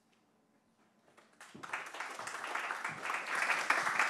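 Near silence, then about a second and a half in, an audience starts applauding, the clapping building up and carrying on.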